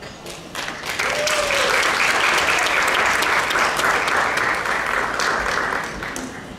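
Audience applauding. It starts about half a second in, holds steady, and dies away near the end.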